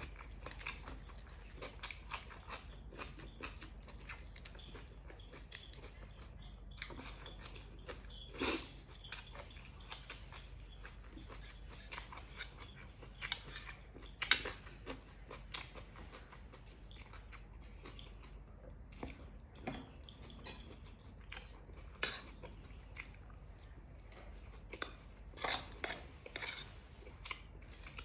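A person chewing and crunching food, with irregular crisp clicks and occasional light clinks of utensils against a dish, over a low steady hum.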